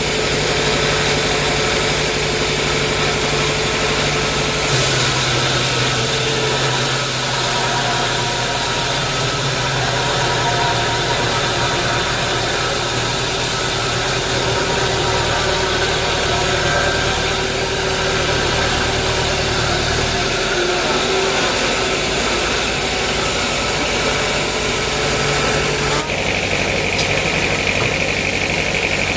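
Sawmill machinery running steadily, a continuous engine-like drone whose tone shifts a few times, about five seconds in, around twenty seconds and again near the end.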